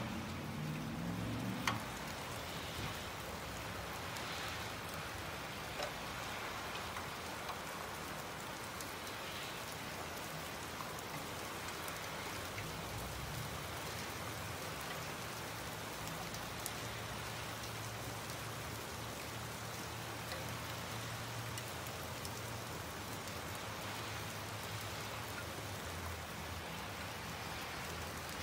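Steady rain falling, with a few sharp ticks among it, the loudest about two seconds in.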